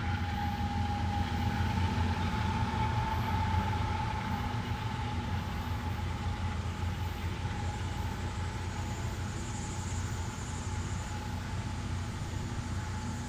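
Diesel freight train running steadily, a low engine hum with a thin steady whine over it.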